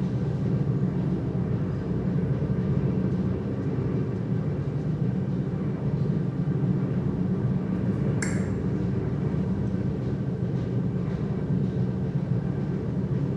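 Steady low hum, with one short click about eight seconds in.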